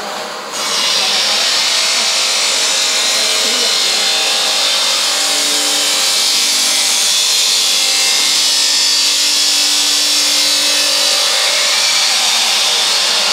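TM2480B-2 vacuum membrane press running its air system: a loud, steady hiss of rushing air that starts about half a second in, with a faint hum beneath it.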